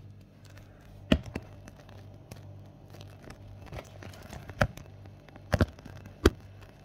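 Handling noise: a few sharp knocks and clicks, two about a second in and a cluster between four and a half and six and a half seconds, over a steady low hum.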